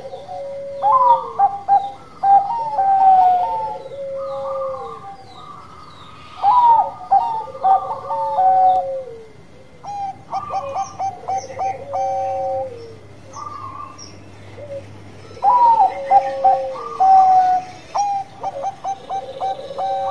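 Bangkok-strain zebra dove (perkutut) singing its 'bekur' song: repeated coo phrases every few seconds, each a quick run of short clipped notes and a longer, lower drawn-out coo. Faint high chirping of small birds comes in behind it from about halfway through.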